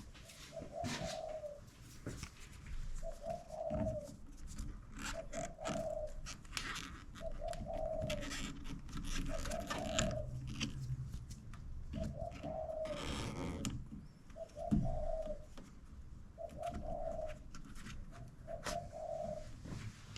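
A dove cooing over and over, about ten short coos at the same pitch, roughly one every two seconds. Scattered light clicks and knocks sound between the coos.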